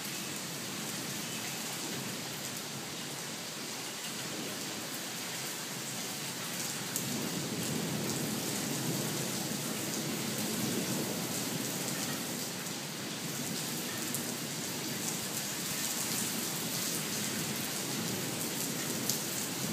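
Steady rain falling on paving and buildings: an even hiss with fine ticks of individual drops striking.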